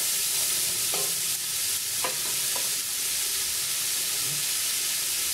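Chopped onion and beef rib pieces sizzling steadily in hot olive oil in an aluminium pressure cooker pot, the onion softening, while a wooden spoon stirs them. Three light knocks come in the first half.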